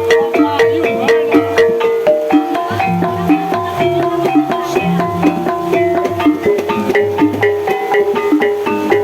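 Javanese gamelan music in the Banyumasan style accompanying an ebeg dance: interlocking struck pitched notes over a steady beat of drum and percussion strikes.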